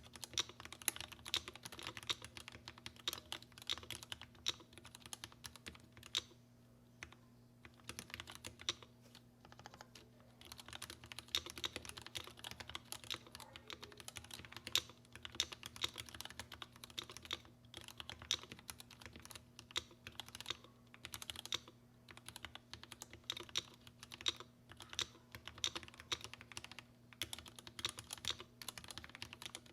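Typing on a Tokyo60 mechanical keyboard with lubed Gateron Black Ink v2 linear switches: a continuous stream of keystrokes, with a short pause about six seconds in.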